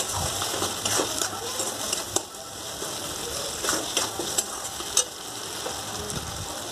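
Onion, tomato and green chilli masala frying in oil in a metal kadai, sizzling steadily, while a flat metal spatula stirs it and scrapes the pan. Sharp spatula scrapes and clicks come about a second in, just after two seconds, around four seconds and at five seconds.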